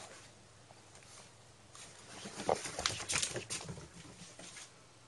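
A cat's paws scampering on a wooden floor: a quick flurry of light taps and scuffs, thickest between about two and four and a half seconds in.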